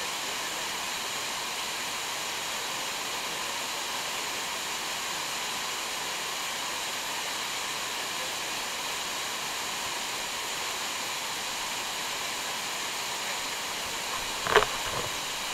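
Steady rush of a waterfall pouring over rocks close by. A single brief, sharp sound cuts in about a second before the end.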